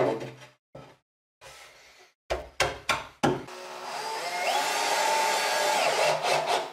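Several sharp wooden knocks as a plywood board is pushed and tapped into place, then a small electric motor runs for about three seconds, its pitch rising and falling.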